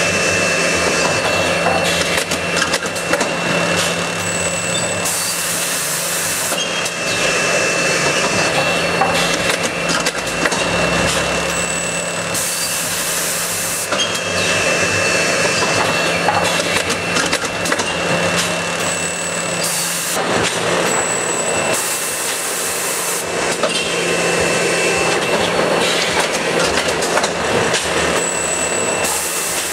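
Seedling-tray press and sowing line running: steady machine clatter and hum with a thin high tone, and a burst of hissing noise about every eight seconds as the line cycles.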